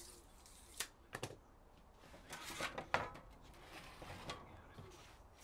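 Handsaws and workshop tools being handled and set down on an MDF sheet: a few sharp clicks about a second in, then a scraping, rattling stretch that ends in a loud clack, followed by a few softer knocks.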